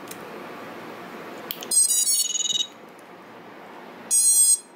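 FPV drone's ESCs playing their power-up tones through the brushless motors as the battery is connected: a short run of electronic beeps about two seconds in and another beep near the end. The tones show that the ESCs have power and have started up.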